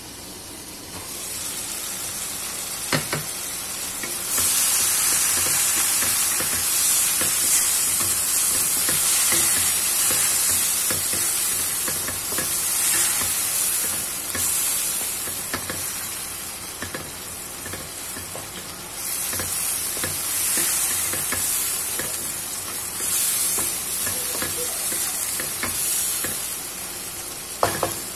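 Chicken pieces frying with onion and garlic in oil in a wok, sizzling, while a wooden spatula stirs and scrapes them around the pan. The sizzle grows louder about four seconds in. A sharp knock comes about three seconds in and another near the end.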